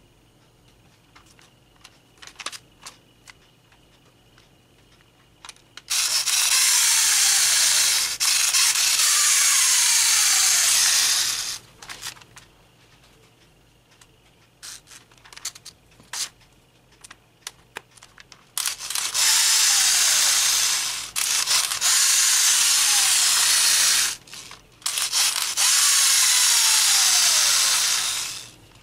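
Wind-up plastic toy dinosaur's clockwork gears whirring in two long runs, each carrying whines that slide down in pitch every couple of seconds. Light clicks and handling between the runs.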